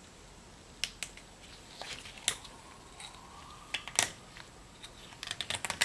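Small sharp metal clicks and scrapes of a pick prying a retaining clip out of the end of a forklift power steering cylinder: a few separate ticks, a faint thin squeak in the middle, then a quick run of clicks near the end.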